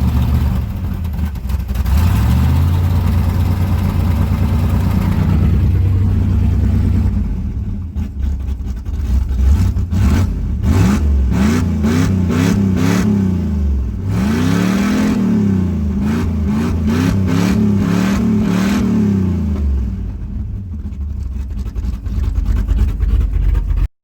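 350 small-block Chevy V8 idling, then revved in a string of quick throttle blips for several seconds before settling back to idle.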